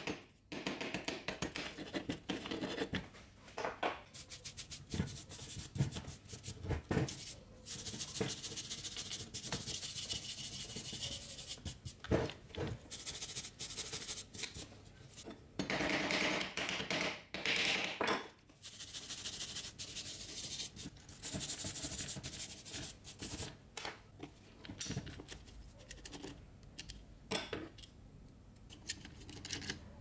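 A hand tool scraping caked dirt and grime off the metal housing of an old Toshiba electric drill, in repeated irregular strokes of varying length.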